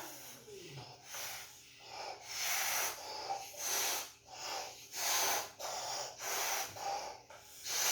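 Air puffed hard into a rubber balloon in repeated breaths, about one blow a second, inflating it.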